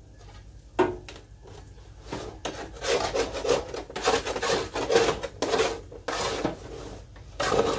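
Spatula scraping roast potatoes loose from a baking pan where they have stuck, in a run of rasping strokes about two a second, after a single sharp knock near the start.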